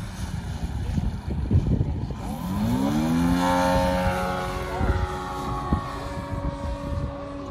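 DA-200 four-cylinder boxer gas engine of a 40%-scale RC Extra 330 LX aerobatic plane, rising in pitch about two and a half seconds in as it revs up, then holding a steady high-power note as the plane climbs away.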